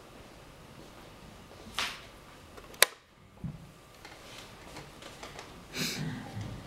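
A wooden chess pawn set down on the board for the opening move, then the chess clock pressed with a single sharp click about three seconds in, the loudest sound. A softer knock follows, and there is a brief rustle of movement near the end.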